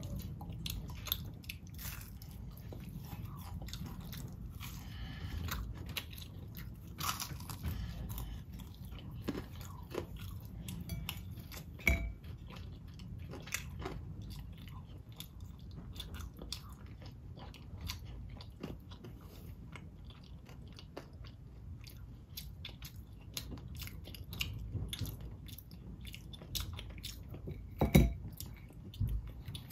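A child biting and chewing crunchy fried dumplings and battered fried sweet potato, with many small crisp crackles of the batter between the teeth. A couple of louder knocks come through, one near the middle and one near the end.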